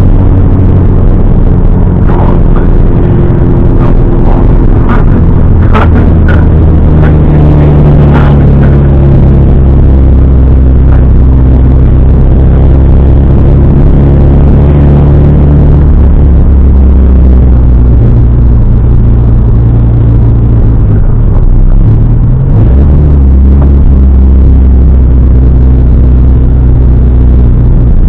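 Toyota Celica ST185 rally car's four-cylinder engine heard from inside the stripped cabin, running at low revs while the car rolls slowly, its pitch stepping up and down a few times. A scatter of sharp clicks and knocks comes in the first several seconds, and the revs dip briefly a little past the middle.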